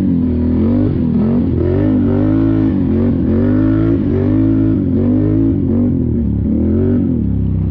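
Can-Am Renegade XMR 1000R ATV's V-twin engine revving up and down repeatedly, its pitch rising and falling about once a second.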